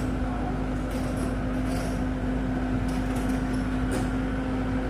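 Diesel engine of a heavy earthmoving machine (excavator or bulldozer) running steadily, a constant low rumble with a steady drone over it.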